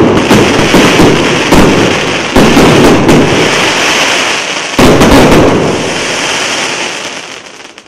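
Final shots of a 142-shot, 1.2-inch consumer fireworks cake: a quick series of launches and bangs over a dense crackle of bursting stars. It thins out after about five seconds and fades away near the end as the cake finishes.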